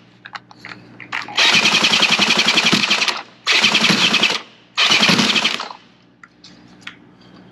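Old two-stroke outboard boat motor being cranked over with a power drill, its pull starter broken: three bursts of fast rattling clatter, the first about two seconds long and the next two about a second each, as it tries to catch on mixed gas squirted into the carburettor.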